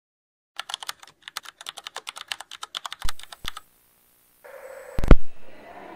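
Keyboard typing clicks, rapid and irregular at about seven a second for some three seconds, with two dull thumps near the end of the typing. After a short pause comes faint room noise and one loud low thump.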